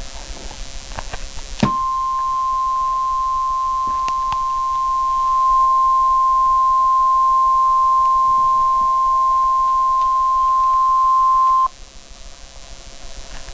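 NOAA Weather Radio warning alarm tone, a single steady tone of about 1050 Hz. It starts abruptly about a second and a half in, holds for about ten seconds and cuts off suddenly. It is the Emergency Alert System signal that a warning message follows.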